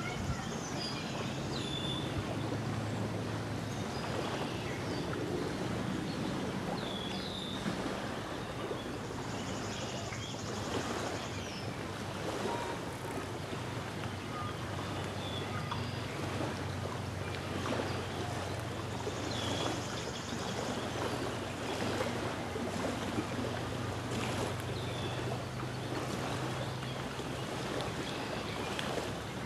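Small waves lapping on a sandy lake shore with light wind, short bird chirps every few seconds and a low steady hum underneath.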